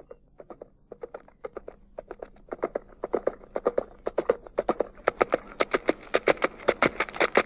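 Sound effect of many horses galloping, a dense patter of hoofbeats that starts faint and grows steadily louder as they approach, standing for an invading cavalry army.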